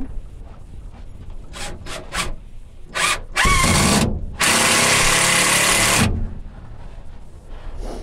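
Cordless drill working into wooden framing: three quick trigger blips, then a short run whose pitch drops as it comes under load, and a longer steady run of about two seconds.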